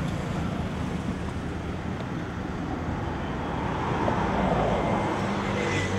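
Steady street traffic noise.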